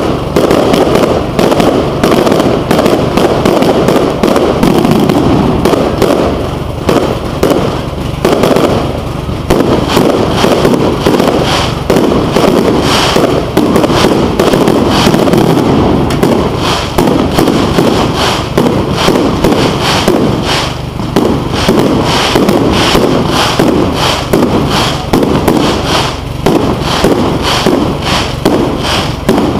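Fireworks display going off in a loud, continuous barrage: aerial shells and rising comets bursting in rapid, overlapping bangs, many a second, with no let-up.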